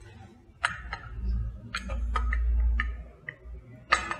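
Light clinks and taps of glass cruets and altar vessels being handled and set down on the altar: several sharp clicks, some with a short ring, the sharpest near the end. A low rumble runs under them from about a second in to about three seconds in.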